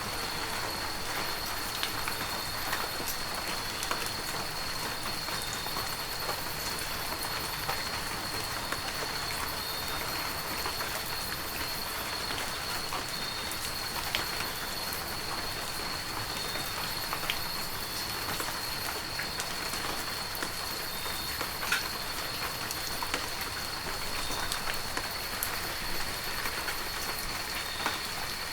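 Heavy rain falling steadily, with single drops ticking sharply now and then, and a thin steady high-pitched tone under it.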